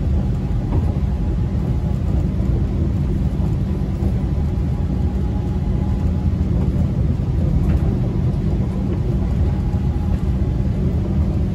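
MRT Yellow Line rubber-tyred monorail train running at speed between stations, heard from inside the carriage: a steady low rumble with a faint even whine over it.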